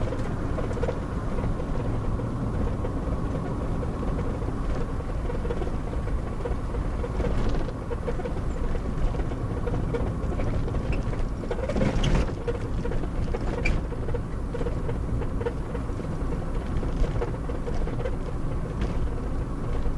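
Cabin noise of a 30-year-old four-wheel drive under way: steady engine and road rumble, with a few brief knocks, the loudest about twelve seconds in.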